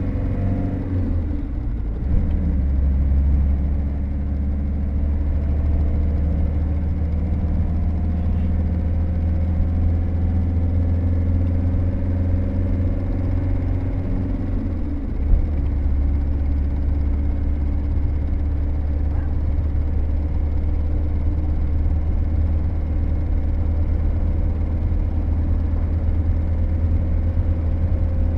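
A motorhome's engine running while it is driven, heard from inside the cab: a steady low hum. The engine pitch drops and then climbs again about two seconds in, and again about fifteen seconds in.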